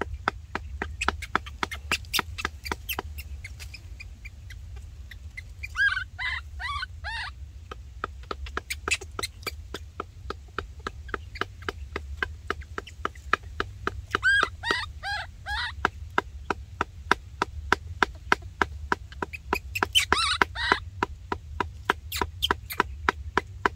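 Quick, even chopping strokes, several a second, from a man working by hand, with three short runs of high squeaky calls from an animal over them.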